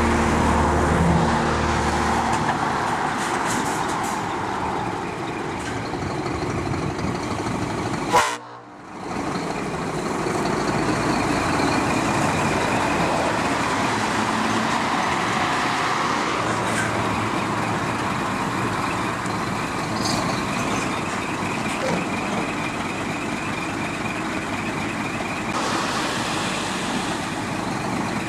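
Scania articulated truck pulling out and turning, its diesel engine running steadily under load along with road noise. Music fades out in the first couple of seconds, and the sound cuts out briefly about eight seconds in.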